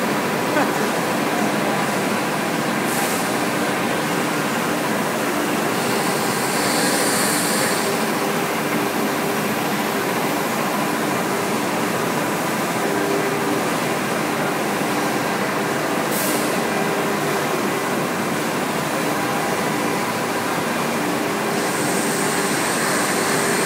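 Five-axis CNC router running as it carves a sculpted head, its spindle and axis motors giving faint steady tones over the constant noise of a busy exhibition hall. A higher-pitched whine comes in briefly about six seconds in and again near the end.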